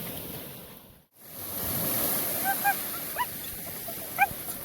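Ocean surf washing on a beach, with some wind. The sound drops out briefly about a second in. A few short, high chirping calls come in the second half.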